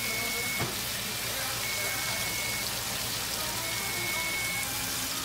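Rib eye steaks searing in a nonstick frying pan, a steady hiss of sizzling fat, under background music that repeats a high held note about every two seconds.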